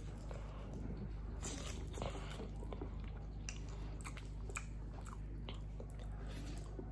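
Faint eating sounds: noodles being slurped and chewed, with scattered small clicks and smacks.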